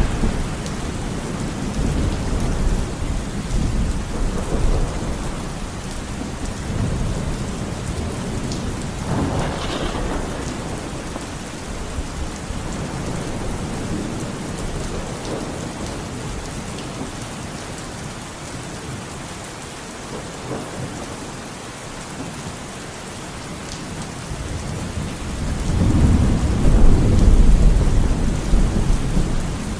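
Steady rain falling with rolling thunder: a rumble about nine seconds in, quieter rain through the middle, and a louder, longer rumble building near the end.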